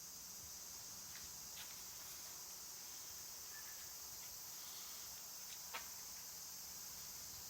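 Yamaha Cygnus X scooter's single-cylinder four-stroke engine idling with its abnormal noise: a low uneven rumble under a steady high hiss, with a few light ticks. The noise is the sign of failing lubrication, where water built up in the oil from short, under-warmed runs and turned it to sludge, wearing the cam.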